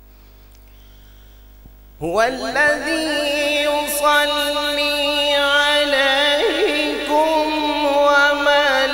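A man's voice reciting the Quran (tilawat) in a long, melodic, drawn-out phrase of held notes into a microphone. It begins about two seconds in, over a faint steady electrical hum.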